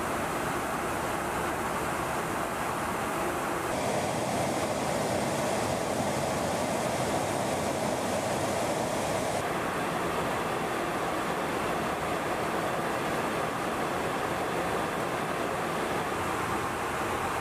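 Steady rushing roar of jet aircraft noise in flight, with no distinct tones. Its character shifts abruptly about four and nine seconds in.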